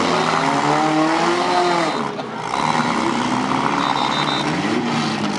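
Several compact demolition-derby cars' engines revving, their pitch rising and falling and overlapping over a steady noisy background.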